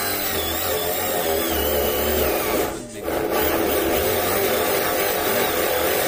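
Corded electric drill running with a hole saw cutting into a wooden door. It stops briefly about three seconds in, then starts cutting again.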